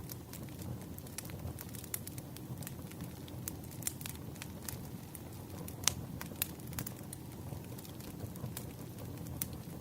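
Wood fire crackling: irregular sharp pops and snaps over a steady low rumble of burning logs, a few louder pops about four and six seconds in.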